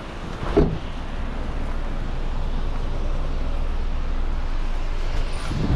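A car door slams shut with a knock about half a second in, over a steady low rumble. Another knock and thud comes near the end.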